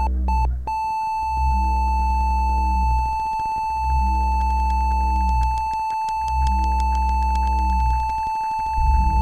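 Quick electronic beeps at one high pitch merge into a single unbroken steady tone, like a patient monitor flatlining. Beneath it a deep synthetic drone swells and fades about every two and a half seconds, and a rougher low rumble rises near the end.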